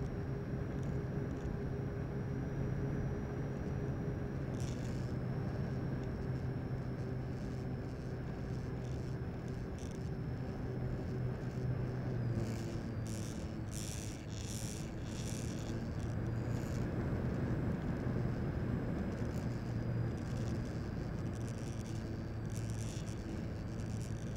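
Electric RC model airplane's motor and propeller running steadily in flight, recorded onboard with air rushing over the microphone. A steady hum and a high whine shift slightly in pitch with throttle changes about four and a half and twelve seconds in.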